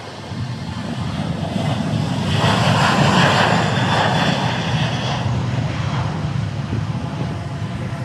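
Boeing 737 jet airliner taking off at full thrust. The engine roar swells to a peak about three seconds in, then eases off as the aircraft climbs away.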